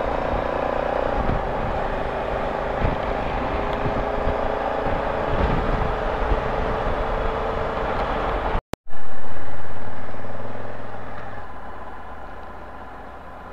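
Honda Africa Twin motorcycle riding at road speed: steady engine hum with wind and road noise. About two-thirds of the way through, the sound cuts out for a moment, then comes back louder and fades away gradually.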